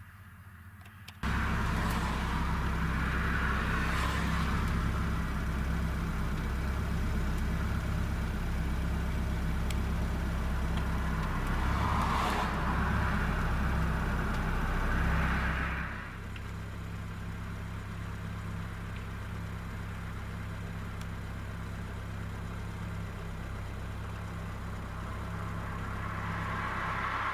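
Road traffic: motor vehicles passing by, about three times, over a steady low engine hum. It starts abruptly about a second in and drops somewhat in level about two-thirds of the way through.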